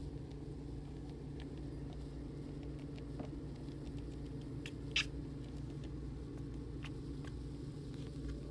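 Steady low hum with a few faint clicks and one short, sharp sound about five seconds in.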